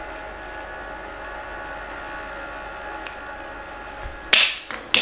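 Steady background hiss with a faint hum, then a loud, sudden clatter of wooden toy pieces knocking together near the end, with a second clack right at the close.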